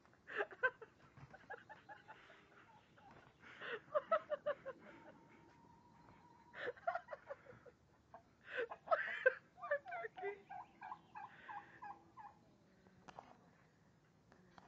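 Domestic turkey gobbling: four bursts of rapid, rattling notes, the longest starting about two-thirds of the way through.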